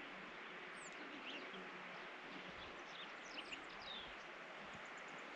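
Faint open-air ambience with scattered short, high bird chirps, several of them sliding downward, most clustered in the middle of the stretch.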